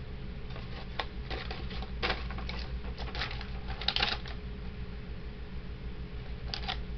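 Fireworks and their cardboard and plastic packaging being handled: a run of light clicks, taps and rustles over a few seconds, loudest about four seconds in, with one more near the end. A steady low hum runs underneath.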